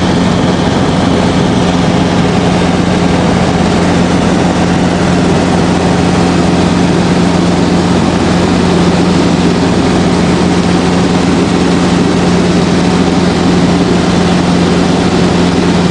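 Robinson R22 helicopter in flight: its four-cylinder Lycoming piston engine and rotors give a loud, steady drone with a strong low hum that holds constant throughout.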